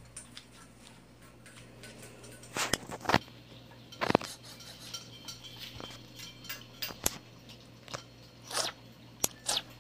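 Small dog eating wet food from a bowl on a tile floor: irregular clinks and knocks of the bowl, with some chewing and mouth sounds.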